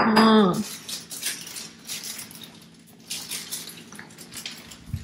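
A brief voice at the very start, then faint crinkling of a plastic ice cream wrapper being handled and opened, with light scattered crackles.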